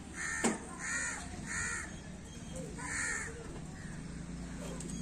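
Crows cawing, four short harsh calls over about three seconds, with a sharp snap about half a second in.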